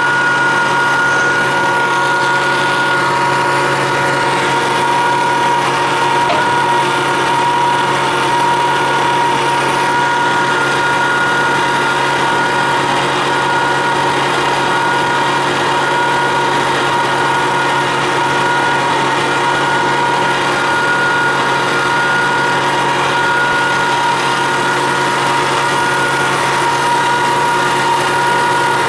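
Heavy machinery running steadily: a constant high whine made of two tones over a low hum, with no change in speed or load.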